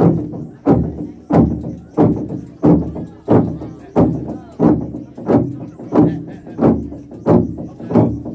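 Naga log drum, a huge hollowed tree trunk, beaten in unison by a group of men with wooden sticks: a steady beat of heavy, ringing wooden strikes, about three every two seconds.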